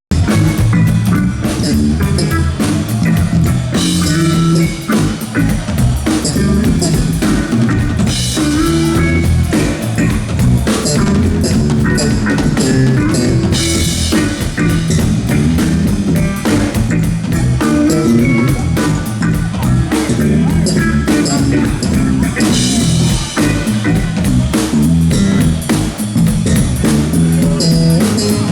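Live funk band playing a groove during a sound check: a drum kit with kick, snare and rimshots over a moving bass line and the rest of the band, played loud and steady.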